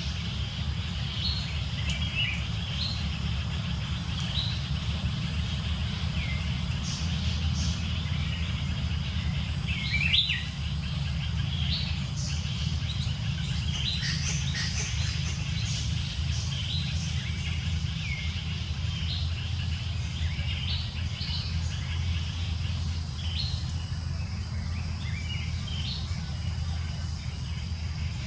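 Outdoor ambience: a steady low rumble with many short, high bird chirps scattered throughout, a slightly louder cluster of calls about ten seconds in.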